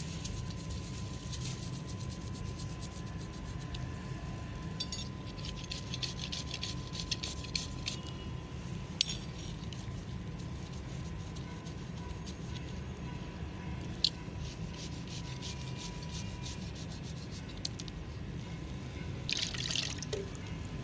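A toothbrush scrubbing rust off a steel spoon in quick scratchy strokes, busiest in the first eight seconds, over a steady low hum. Near the end, a short splash of water poured into a plastic cup.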